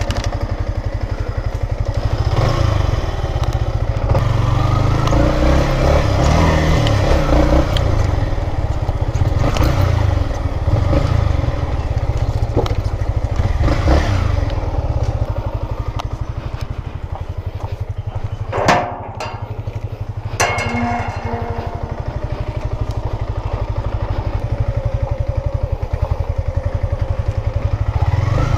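Yamaha MT-15's 155 cc single-cylinder engine running at low speed as the bike rolls along slowly, with a steady pulsing exhaust note. Two sharp knocks come a couple of seconds apart, a little past the middle.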